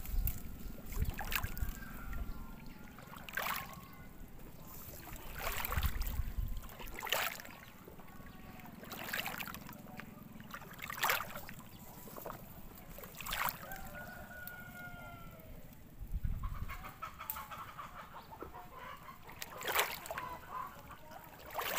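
A country hen cackling over and over, in a run of short notes and a few longer drawn-out calls: the cackle a hen gives just after laying an egg.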